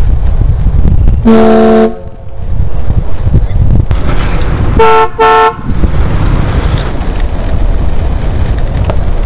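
Car horns mounted on a bicycle sounding: one low-pitched honk a little over a second in, then two short, higher-pitched toots in quick succession about five seconds in, over a steady low rumble.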